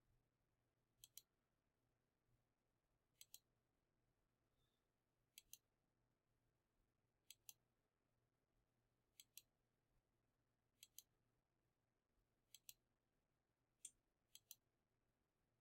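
Faint clicks of a computer mouse button, each a quick press-and-release pair, coming about every two seconds over near silence with a faint low hum.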